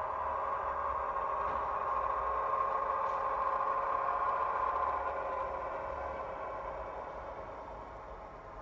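Recorded Class 128 diesel railcar engine sound played through a model locomotive's small sound-decoder speaker, running steadily, then growing quieter over the last few seconds as the model slows.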